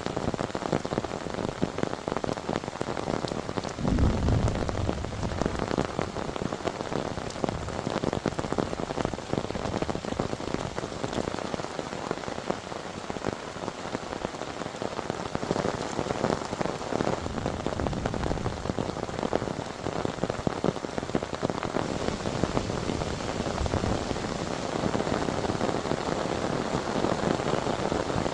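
Heavy rain falling steadily, with many close drops ticking on a surface, and a short low rumble about four seconds in.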